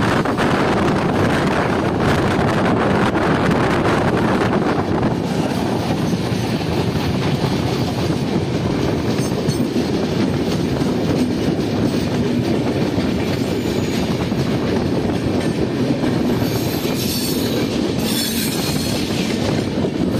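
Vaishali Superfast Express running along the track, heard from on board: a steady rumble of wheels on rails with clickety-clack over the rail joints.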